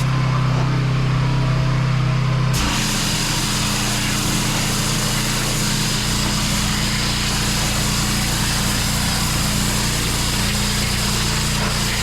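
Pressure washer engine running steadily with the hiss of the high-pressure water spray. About two and a half seconds in, the engine note shifts and the spray hiss gets louder and brighter, then both hold steady.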